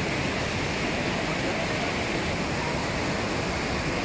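Steady rushing of whitewater rapids, river water churning over rocks.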